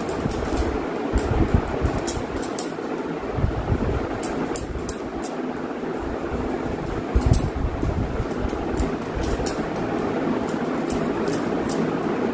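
Steady rushing background noise, with frequent short clicks scattered through it from bangles clinking together on the massaging hands.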